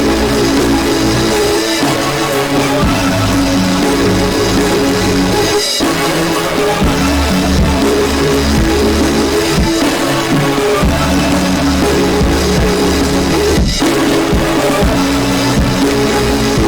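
Recorded music track playing loud and dense, a continuous wall of sound that breaks off very briefly twice, about six seconds in and again near fourteen seconds.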